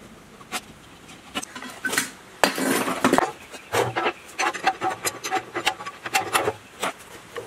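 Steel socket wrench clinking and scraping on the bolts of an old diesel engine as nuts are loosened for disassembly, with a scraping stretch a few seconds in and a quick run of metallic clicks and rings in the second half.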